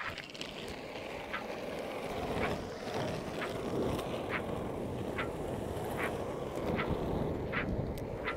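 Skateboard wheels rolling fast down asphalt, a steady rumble that builds over the first couple of seconds, with short clicks a little under once a second.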